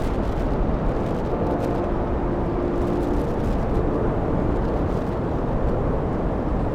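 Strong wind blasting across the microphone: a loud, continuous rumble of buffeting that drowns out everything else. It stops abruptly at a cut near the end.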